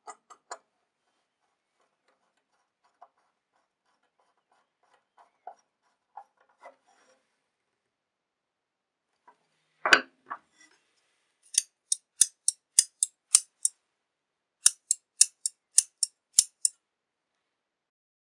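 Vintage Mikov steel fabric shears, freshly de-rusted, oiled and sharpened, worked open and shut: crisp high-pitched snips about two a second in two runs of seven or eight. Before them come a few faint clicks and one loud knock about ten seconds in.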